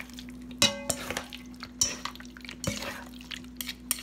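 Metal spoon scraping and knocking against a stainless steel mixing bowl while duck meat is stirred through a fermented-tofu marinade. A few knocks stand out; the one about half a second in rings like struck metal.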